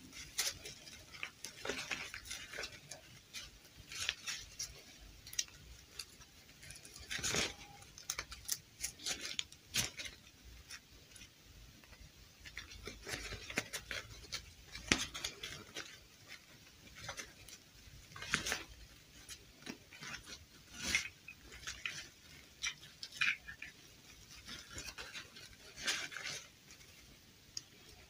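Irregular rustling and light clicks as hands dress a plastic fashion doll, its cloth dress rubbing and its stiff limbs tapping.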